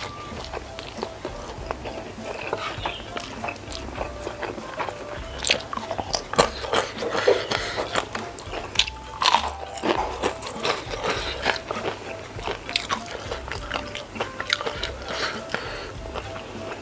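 Close-miked eating of spicy stir-fried noodles: wet chewing and mouth noises, with a run of loud crunching bites into a crispy fried wonton in the middle.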